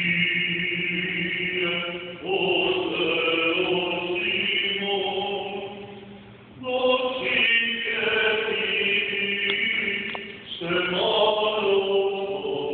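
Orthodox liturgical chant for the wedding crowning, sung in long phrases with short breaths between them.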